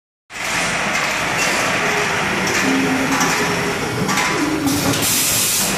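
Automatic hardware packing machine with ten vibratory bowl feeders running: a steady buzz from the vibrating bowls over the clatter of screws and the bagging mechanism, with a loud hiss about five seconds in.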